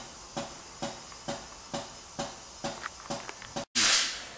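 Background music with a steady beat, about two beats a second. Near the end it breaks off briefly, and a short, loud burst of hiss follows.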